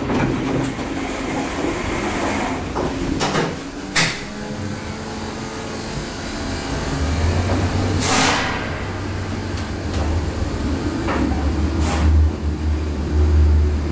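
Passenger lift heard from inside the car: a sharp click about four seconds in, then a low steady hum of the car travelling, with a brief rushing sweep in the middle and a few knocks near the end.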